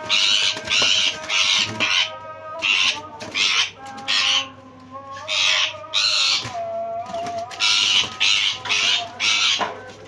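Green (Indian) ringneck parakeets screeching in fast runs of harsh squawks, about three a second, with scattered single calls between the runs: alarm calls from birds being grabbed by hand in their cage.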